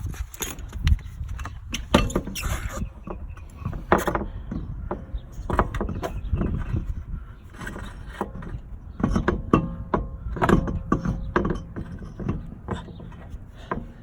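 Irregular metallic knocks, clunks and scrapes as a car wheel and tire are handled and fitted back onto the hub.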